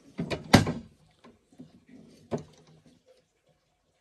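Door of a wooden toy kitchen's oven being knocked and pushed by a small child's hand: a quick cluster of wooden knocks about half a second in, the loudest of them, then another knock a little past two seconds, with faint handling ticks between.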